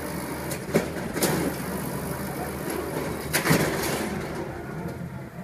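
Diesel engine of an automated side-loader garbage truck running steadily while its hydraulic arm lifts toward the hopper, with sharp metallic clunks about a second in and again about three and a half seconds in.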